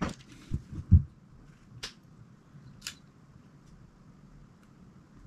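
Small knocks and clicks of a plastic Lego model being handled: three short low knocks in the first second, the loudest near one second in, then two sharp clicks about a second apart.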